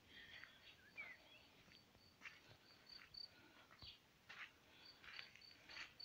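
Faint countryside ambience: an insect chirping in runs of short, evenly spaced high pulses, a brief bird chirp about a second in, and soft scuffs of footsteps on the gravel road.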